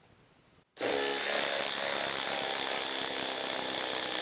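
Ryobi HP cordless impact driver hammering a 4-inch lag screw into a log. It starts abruptly about three-quarters of a second in and runs steadily.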